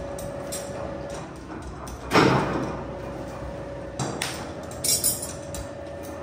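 A heavy thump about two seconds in, then a few lighter knocks and clicks about four and five seconds in, over a steady hum.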